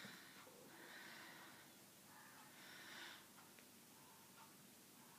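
Near silence with a few faint breaths from the man in the pause between phrases, three soft hisses in the first three seconds.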